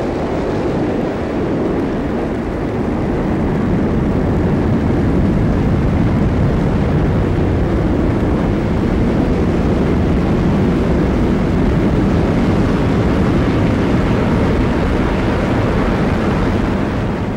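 Saturn V rocket engines running at full thrust during liftoff: a loud, steady, deep rumbling rush of noise.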